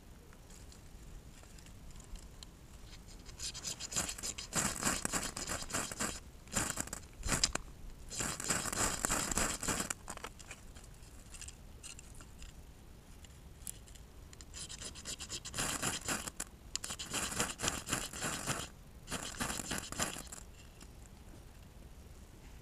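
Rapid, rasping scraping in two stretches of several seconds each, with a pause between them.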